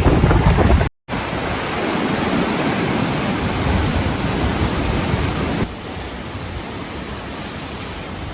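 River in flood, fast-flowing floodwater rushing with a steady, even noise. It breaks off completely for a moment about a second in, then drops abruptly to a lower level a little before the six-second mark.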